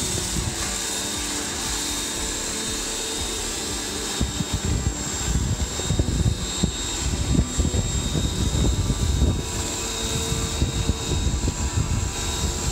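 Ryobi electric pressure washer running, feeding a Sun Joe SPX-PCA10 surface-cleaner brush whose angled jets spin under water pressure and spray onto an aluminum trailer deck. The sound is steady at first and becomes more uneven and splashy from about four seconds in.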